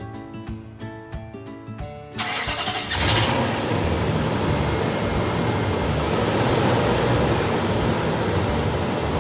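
Background music, then about two seconds in a Nissan Titan's engine cranks, catches about three seconds in and settles into steady running.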